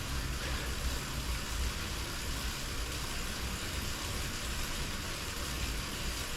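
Indoor bicycle trainer running steadily under pedalling: a low rumble with an even hiss over it.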